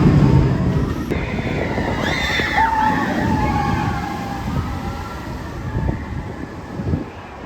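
Intamin family launch coaster train running past and fading away, with high, wavering squeals over it.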